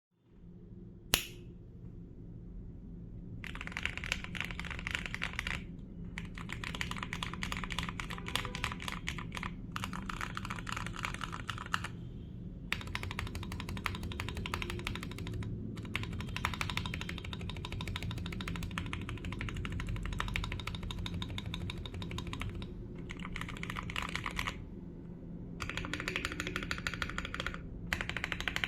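Fast typing on a Redragon K552 Kumara mechanical keyboard with lubed Akko Jelly Black linear switches, its case dampened with foam, tape, towel and switch pads. The owner says the switches are still mildly scratchy. There is one sharp click about a second in, then runs of rapid keystrokes broken by short pauses, over a steady low hum.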